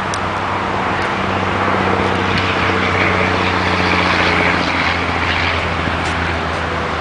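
Road traffic: a motor vehicle's engine hum and tyre noise swell up over the first few seconds and then ease off.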